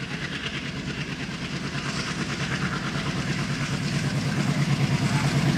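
Twin ALCO WDM-3A diesel-electric locomotives approaching, their 16-cylinder ALCO 251 engines giving a steady rhythmic throb that grows louder as they near.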